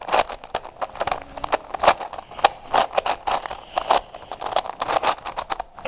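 Meffert's Treasure Chest plastic twisty puzzle being turned by hand during a solve: quick, irregular clicking and clacking of the pieces as the layers are twisted. The puzzle turns stiffly.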